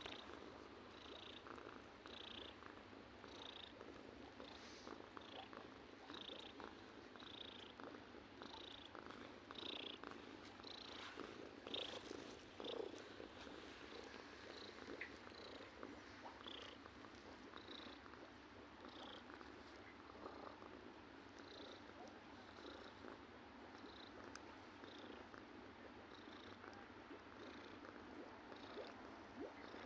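Domestic cat purring, quiet and steady, with a soft breathing rhythm about once a second.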